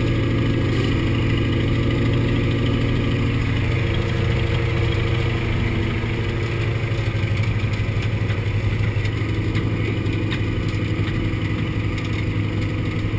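Antonov An-2's nine-cylinder radial engine running steadily, heard from inside the cabin as a deep, even drone.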